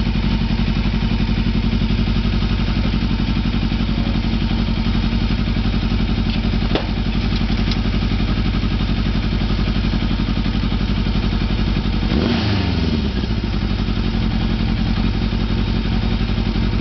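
Engine of an open-frame buggy idling steadily through its overhead exhaust. There is a single sharp click about seven seconds in, and a brief dip in pitch around twelve seconds in.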